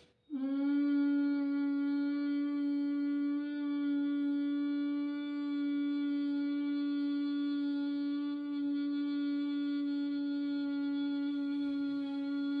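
A woman humming one long note at a single pitch on the out-breath: the bee-like hum of Bhramari pranayama. It starts a moment in and does not waver or break.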